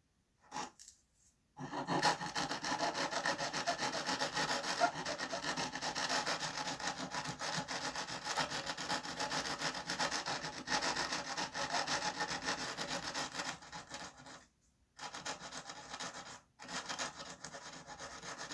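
A small hand file rubbed in quick back-and-forth strokes along wooden dollhouse gable trim, smoothing the edge. The scraping starts a little under two seconds in, runs steadily, then stops briefly twice near the end before going on.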